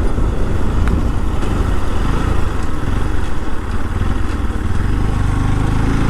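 Motorcycle engine running at low speed. Its note settles into a steadier hum for the last second or two.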